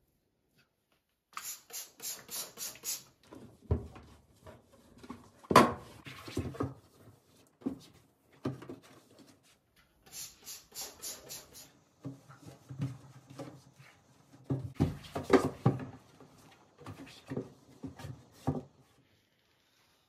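A trigger spray bottle spritzing cleaner onto cabinet shelves in two quick runs of about six or seven sprays each. Between and after the runs come a cloth wiping the shelves and scattered knocks and bumps against the cabinet, the loudest a sharp knock about five seconds in.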